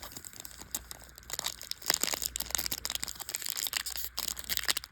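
Crinkling and tearing of a trading-card pack's foil wrapper as it is handled and torn open, in irregular crackling rustles that get busier about a second in.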